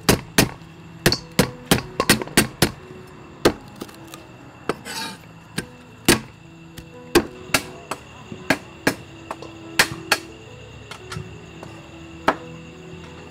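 Cleaver chopping lemongrass stalks on a thick round wooden chopping block: sharp, uneven knocks, about three a second at first, then sparser and more spread out, with a short scraping rustle about five seconds in.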